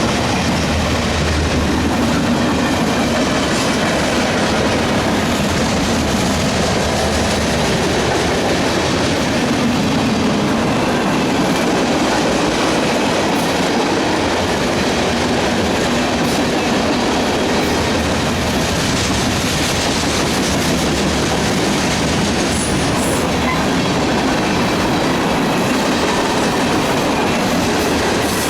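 CSX mixed freight train rolling past at close range: the steady, loud rumble and clatter of steel wheels on the rails as the cars go by.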